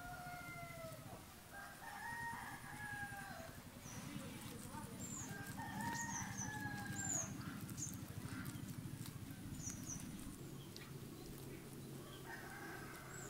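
Roosters crowing, several long crows a few seconds apart, with small birds chirping briefly and high in between.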